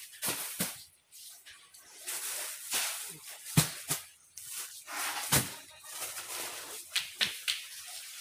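Plastic bags and sacks rustling as they are handled, broken by irregular knocks and thumps, the loudest about three and a half and five and a half seconds in.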